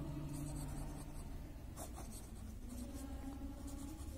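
Pen writing on ruled notebook paper: soft scratching strokes at an uneven pace as a word is handwritten.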